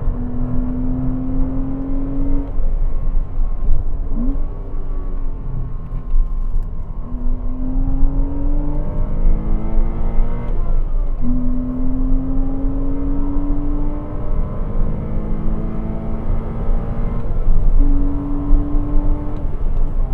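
Porsche Cayman 987's 2.7-litre flat-six pulling hard through the gears: its pitch climbs in several long runs and drops back at each change, with a brief sharp blip of revs about four seconds in, over steady low road and wind rumble.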